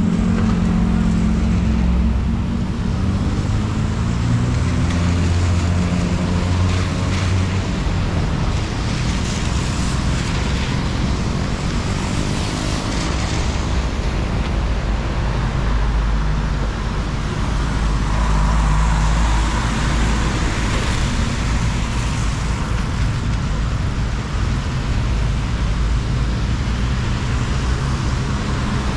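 Road traffic close by: vehicle engines running with a low hum that rises and falls in pitch in the first several seconds, over a steady hiss.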